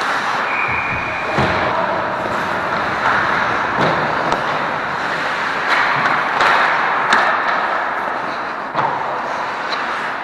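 Rink sound from an ice hockey game: a steady noise of skating and play, broken by about five sharp knocks of sticks and pucks against boards or pads, with a brief high steady tone about half a second in.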